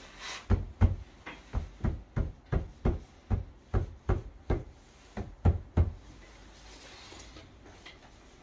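A run of about fifteen dull knocks, roughly three a second, that stops about six seconds in.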